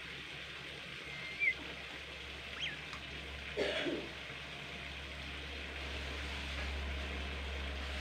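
Sparse short whistled calls of a caged bimoli songbird: a brief wavering note about a second in, then a quick upward-sweeping chirp, then a short, lower, rougher call near the middle. A steady low hum lies underneath.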